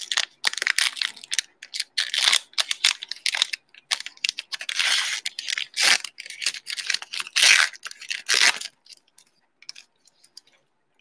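Plastic wrapper of a Mosaic basketball cello pack being torn open and crinkled by hand in a run of crackling bursts. The crackling stops about three-quarters of the way through.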